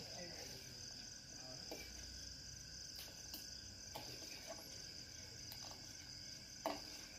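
Steel ladle stirring and scraping in a steel pot of thick milk tea, with a few light clinks against the pot, the loudest near the end. A cricket trills steadily in the background.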